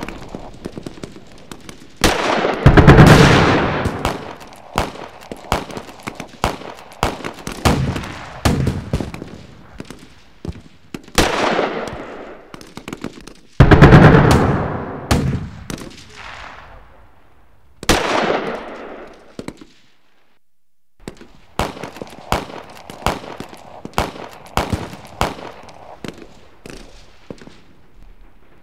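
Rapid bursts of gunfire, many sharp cracks in quick runs, with two big blasts that die away slowly, about two seconds in and near the middle. The sound cuts to dead silence for about a second near two-thirds of the way through.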